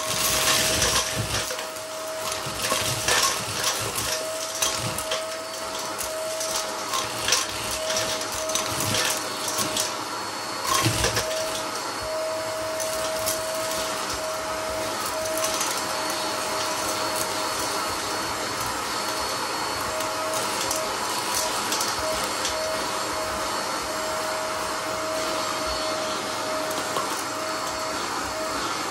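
Vacuum cleaner running steadily with a constant whine. Frequent clicks and knocks over roughly the first twelve seconds give way to a smoother, even running sound.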